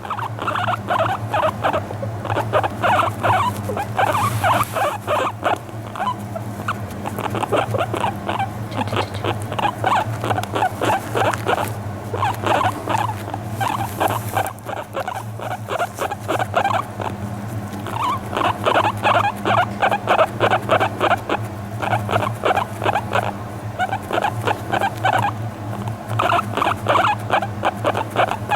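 Guinea pig making a long run of short, quick calls, several a second, with a few brief lulls: its soft affectionate sound when it is relaxed and being brushed.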